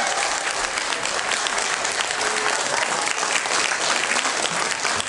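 Audience applauding: dense, steady clapping from a hall full of people at the end of a folk dance performance.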